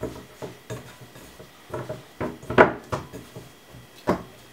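Hands mixing and kneading roti dough in a glass mixing bowl: irregular soft knocks and scrapes against the glass, with a few louder knocks about two and a half and four seconds in.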